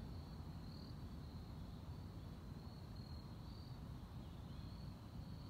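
Insects trilling in a thin, high band that rises and falls every second or so, over a low, steady outdoor rumble.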